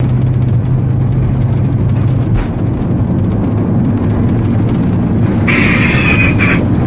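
Airliner cabin noise as the plane rolls along the runway at speed: a loud, steady low rumble of engines and wheels with a low hum. About five and a half seconds in, a higher, harsher sound joins in over it.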